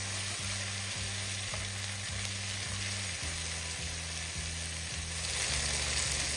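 Chopped onions, carrots and celery sizzling in hot oil and tomato paste in an enamelled cast-iron Dutch oven while a wooden spoon stirs them. The sizzle grows a little louder near the end, over a steady low beat of background music.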